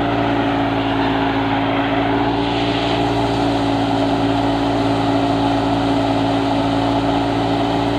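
Belarus tractor's engine driving a wheat thresher that is threshing wheat: a steady, even machine hum with the rushing noise of the thresher drum and fan.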